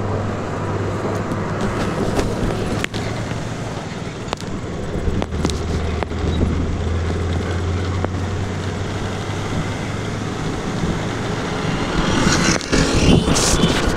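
Steady engine hum and rushing road and wind noise from a motor scooter riding close behind a diesel motor grader, with a few sharp clicks and a louder burst of noise near the end.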